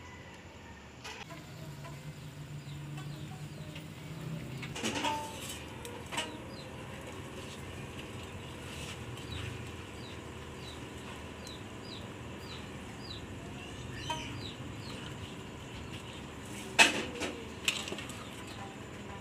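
A metal ladle clinks against a steaming aluminium pot and a stainless steel bowl while blanched sweet potato leaves are scooped out. There are a couple of knocks about five seconds in and the sharpest clinks near the end. Between them, birds give a quick run of short, high chirps.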